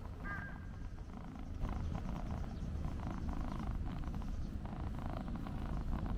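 Tuxedo cat purring steadily while it is being stroked, a fast low rumble, with a brief high chirp near the start.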